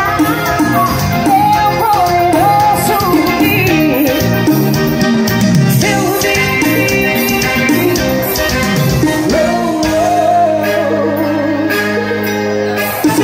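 Live amplified music: a woman singing into a microphone over a loud backing with a steady beat, played through a PA. Near the end she holds one long note over a sustained chord.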